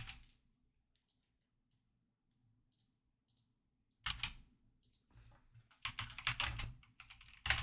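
Computer keyboard typing: a single click at the start, then short bursts of quick keystrokes from about four seconds in.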